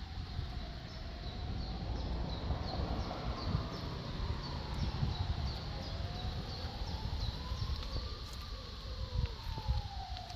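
A siren wailing, its pitch rising and falling slowly over several seconds, above a steady low rumble. Short high chirps repeat about twice a second.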